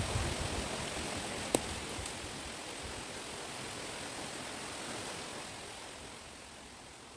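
Wind blowing through a chestnut wood, a steady rushing rustle of leaves and stems, with low gusty rumble on the microphone at the start that eases off; the wind dies down a little near the end. A single sharp click about a second and a half in.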